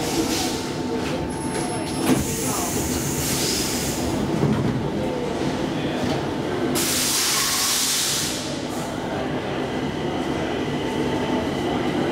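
Inside a Stockholm Metro C14 train car standing at a platform: a steady hum, with a click about two seconds in and a hiss lasting over a second about seven seconds in.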